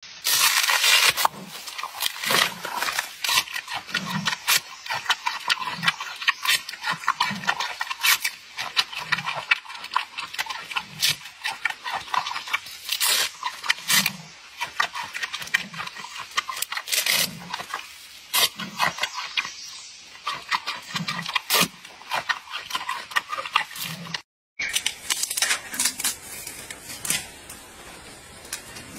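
Giant panda chewing bamboo: crisp cracking and crunching of the shoots, with a low thud recurring every second or two. The sound briefly cuts out near the end, and the crunching that follows is quieter.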